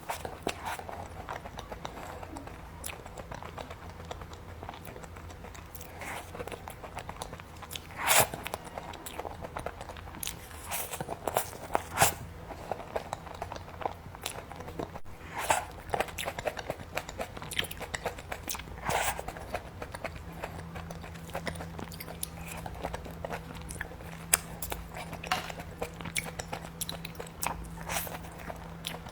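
Close-miked eating of a cookies-and-cream treat: bites and chewing with crunching, in irregular bursts with a few louder bites spread through.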